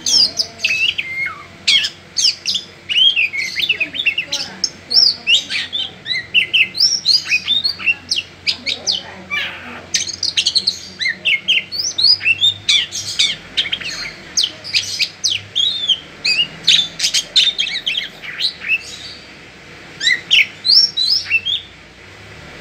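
Oriental magpie-robin singing: a fast, varied run of sweeping whistles and sharp chirps, with a short break near the end.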